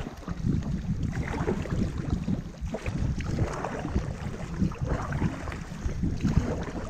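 Paddle blades stroking and splashing in the water beside a tandem inflatable paddleboard, under a gusty rumble of wind on the microphone.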